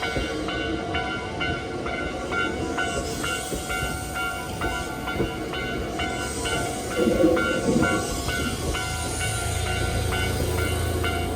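Japanese railway level-crossing warning bell ringing in a steady, repeating stepped-tone pattern while a Hankyu train rumbles over the crossing. A louder burst of train noise comes about seven seconds in.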